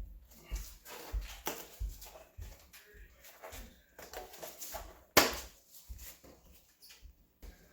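Bicycle tire and inner tube being worked onto a wheel rim by hand: irregular rubbing and dull knocks, with one sharp snap about five seconds in.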